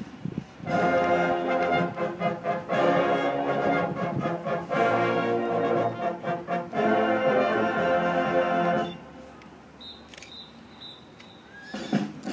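High school marching band playing slow, held chords, mostly on brass, in three or four phrases. The chords stop about three-quarters of the way through, leaving a quieter stretch before the band starts up again near the end.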